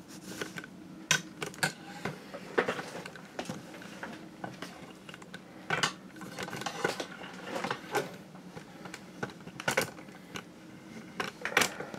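Handling noise as a camera is moved and repositioned: scattered light clicks and knocks, a few sharper than the rest, over a faint steady low hum.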